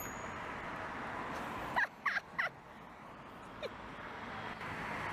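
Steady city street background noise, broken about two seconds in by three short, loud squeaky calls that sweep in pitch.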